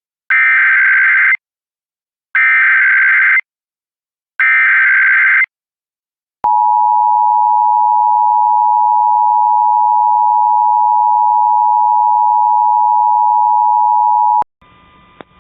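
Emergency Alert System tones announcing a Child Abduction Emergency (AMBER Alert): three buzzy bursts of SAME digital header data, each about a second long and a second apart. Then the steady two-tone EAS attention signal plays for about eight seconds and cuts off suddenly.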